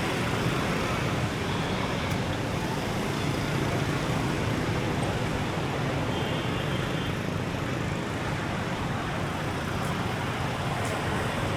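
Steady road traffic noise, an even, unbroken hum of passing vehicles.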